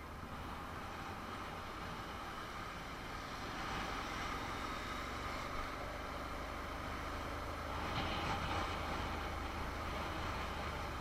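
Honda NC750 motorcycle's parallel-twin engine running with road and traffic noise during a city ride. The noise grows louder about four seconds in, with a brief louder rush about eight seconds in.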